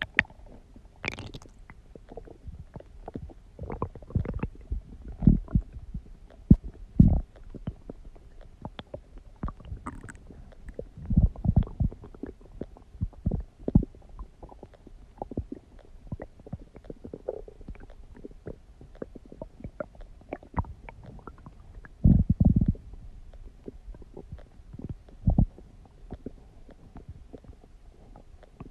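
Human stomach growling and gurgling: a steady run of irregular short gurgles and pops, with louder rumbling spells about a third of the way through and again about three-quarters through.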